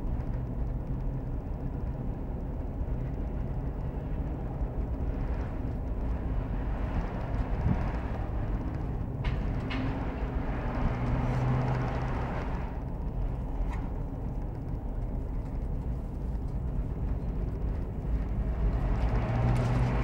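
Steady low background rumble, with a few faint clicks near the middle.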